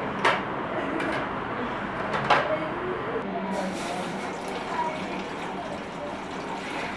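Two sharp knocks of plates being handled in a plastic dish rack, then, from about halfway, water poured from a plastic jug into a metal cooking pot, a steady splashing.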